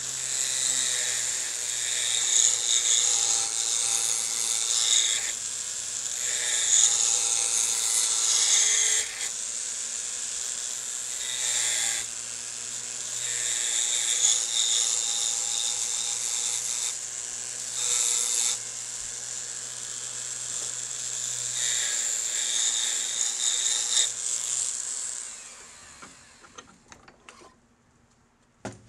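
Checkering cutter scoring lines into a wooden grip blank: a scratchy cutting noise that swells and eases with each pass, over a steady low hum. It stops about 25 seconds in, and a small click follows near the end.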